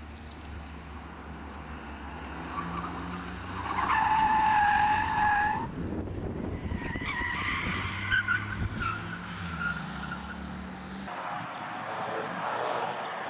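Lexus IS 200's straight-six engine running hard as the car slides through a corner on asphalt, its tyres squealing: one loud, steady squeal about four seconds in, then a second, wavering squeal.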